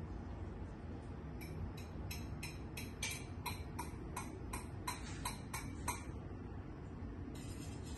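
Gas range spark igniter clicking about three times a second, some fourteen clicks in all, as a burner is lit; a steady hiss sets in near the end.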